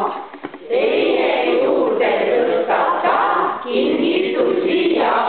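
A group of people singing together, the many voices starting about a second in.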